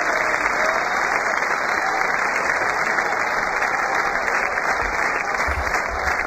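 Steady wind rush over the paraglider pilot's camera microphone during the final approach to landing. Low thumps come in during the last second or so as the pilot touches down on the grass.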